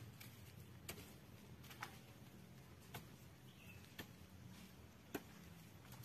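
Near silence: a faint low hum with short sharp clicks about once a second.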